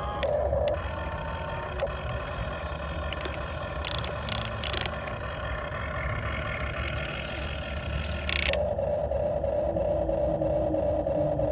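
Electric motors and gearing of a Huina 1550 RC excavator whining steadily as the arm and bucket move, with a few short scraping noises. About eight and a half seconds in, the whine shifts to a stronger steady tone.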